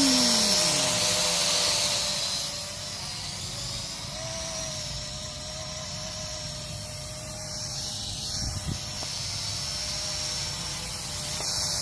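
Small drone's propellers whining steadily, with a slight rise in pitch about four seconds in and fainter after about two seconds, over wind rumbling on the microphone.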